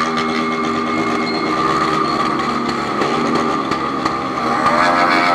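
Honda CB1000's inline-four engine running as the motorcycle is ridden, steady at first, then revving up with a rising pitch near the end.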